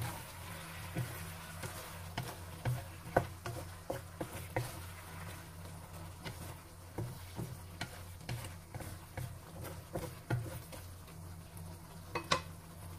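Wooden spatula stirring fish pieces and bok choy in a wok of simmering sauce: irregular scrapes and taps on the pan, the sharpest about three seconds in and near the end, over light sizzling and a steady low hum.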